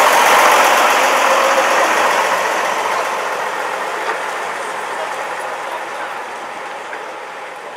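Engine of the vintage North Western double-decker bus number 224 running as the bus pulls slowly past and away, its sound fading steadily as it draws off.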